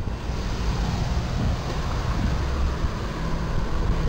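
Steady road traffic noise: vehicle engines running with a low hum under a broad rushing sound.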